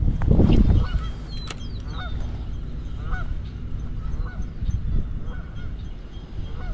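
Geese honking, a string of short upward-hooked calls repeating about once or twice a second, with a loud low rumble on the microphone near the start.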